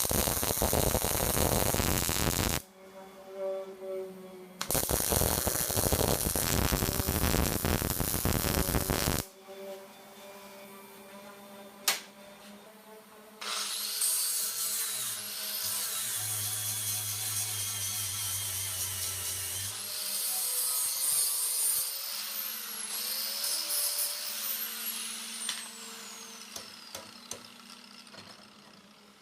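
Power tool working metal: two long bursts of harsh, loud noise, then after a sharp click about twelve seconds in, a longer, quieter run whose high whine rises and falls, over a steady low hum.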